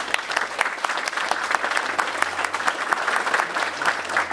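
Audience applauding: many hands clapping at once, a dense, irregular patter that keeps going steadily.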